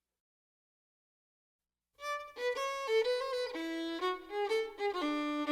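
Silence, then a violin begins playing a tune about two seconds in, moving quickly from note to note over a held lower note.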